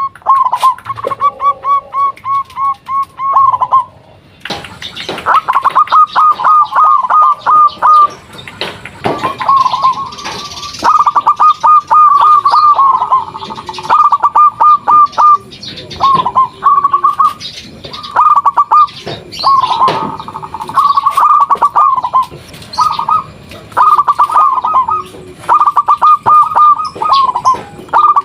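Zebra dove (perkutut) singing: repeated phrases of quick, staccato cooing notes, each phrase a second or two long with short pauses between.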